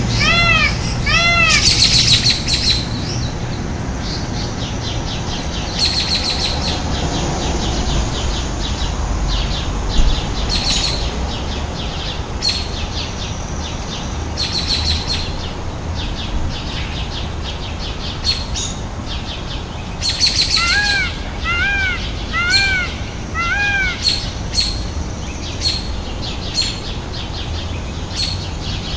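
Indian peafowl (peacock) calling: a series of four arching, wailing cries about 20 seconds in, after the end of a similar series right at the start. Short sharp clicks recur throughout.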